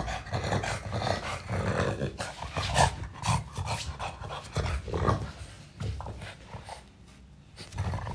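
French Bulldog grunting and snorting in short, irregular bursts at close range while licking and nuzzling a man's face. The sounds die down near the end.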